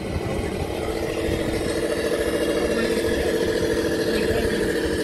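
RC rock crawler's electric motor and gearbox whining steadily as it crawls along, building up over the first second and then holding at an even pitch.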